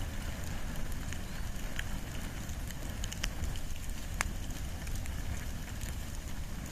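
Wood and bamboo burning in an open fire: a steady low rumble of flame with scattered sharp crackles and pops, the sharpest one about four seconds in.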